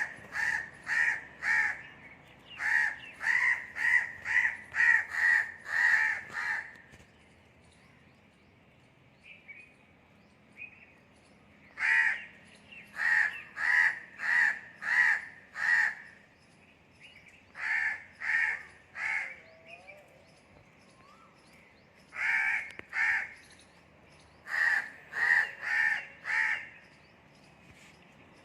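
Crows cawing in runs of rapid, harsh calls, several caws a second per run, with quiet gaps of a few seconds between runs.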